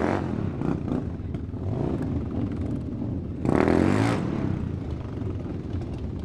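Motorcycle engine running, with a louder surge of revving for under a second about three and a half seconds in.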